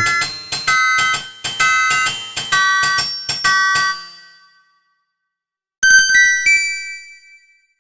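Verykool i121 phone ringtones: a synthesized bell-like melody of quick separate notes that ends about four seconds in, then after a short pause a brief chime of three rising notes that rings out.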